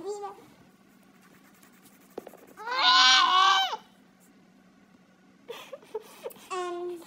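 A wavering, cry-like wail from a voice, about a second long, a few seconds in. A few short sounds follow, then a brief voiced note near the end.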